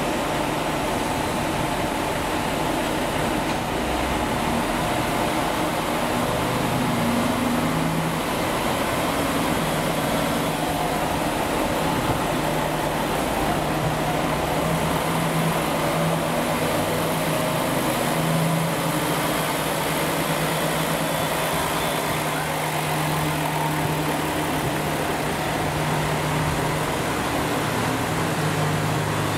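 Diesel engines of a two-car KiHa 47 and KiHa 125 railcar train idling, a steady low hum.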